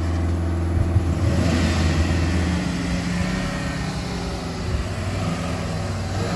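Volkswagen Jetta's engine running at a steady idle, with a brief swell of higher noise around the first two seconds, while it supplies a jump to a dead short-bus battery.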